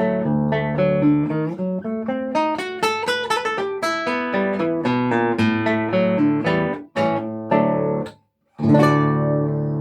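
Solo acoustic guitar fingerpicking a quick melody over a moving bass line. It breaks off for a moment just past eight seconds in, then picks up again.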